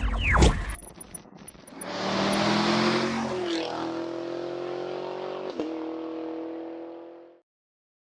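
A car engine revs up, then holds a steady note and fades out to silence near the end.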